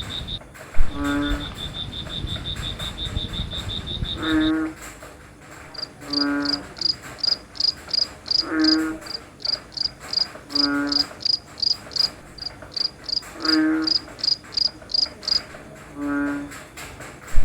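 A frog giving a low croak about every two to three seconds, seven times, over crickets. A fast, even high trill stops about four seconds in. A slower high chirp, two or three pulses a second, takes over until near the end, when the trill returns. There is a sharp click just under a second in.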